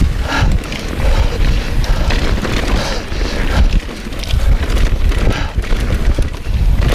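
Mountain bike descending a dirt trail at speed: wind buffeting the microphone over a steady tyre rumble, with frequent knocks and rattles from the bike over rough ground.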